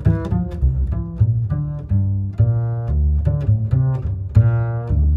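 Background music: a deep bass line with short pitched notes changing every fraction of a second over a steady beat of sharp ticks.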